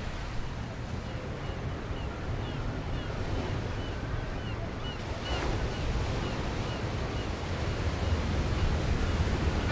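Ocean surf breaking, with wind, as a steady rushing noise with a deep rumble. A run of short, high chirps sounds through the first seven seconds or so.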